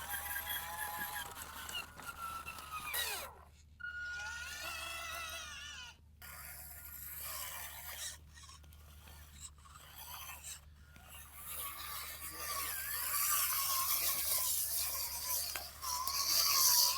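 Small electric gear motors of radio-controlled model construction machines whining, the pitch rising and falling as they drive and work. The sound breaks off abruptly several times.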